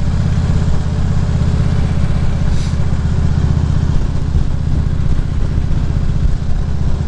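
2014 Harley-Davidson Ultra Classic Limited's V-twin engine running steadily while riding, heard through a helmet-mounted microphone.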